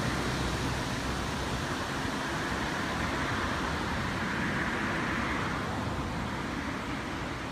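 Surf on a sandy beach: a steady rushing of breaking and washing waves that swells a little about five seconds in.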